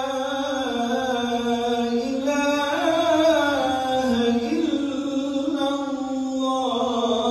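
A man's voice chanting the adhan, the Islamic call to prayer, in long ornamented held notes that glide up and down.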